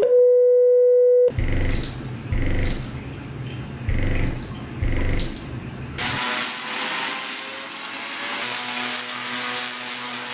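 A steady, pure test tone that cuts off about a second in, followed by a rushing, water-like noise with low pulses roughly once a second, which becomes an even hiss about six seconds in.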